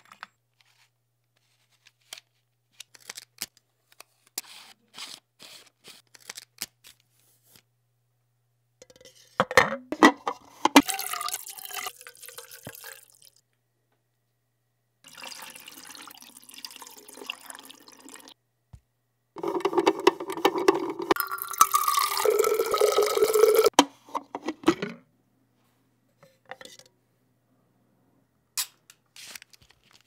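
Darkroom film-developing sounds: a run of small sharp clicks and rattles from handling film and a film canister, then liquid poured into a developing tank and sloshing in three spells, the last the loudest, then a few more clicks near the end.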